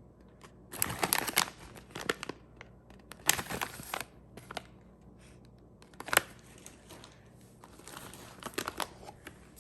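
Plastic snack packaging crinkling in several short bursts as it is handled.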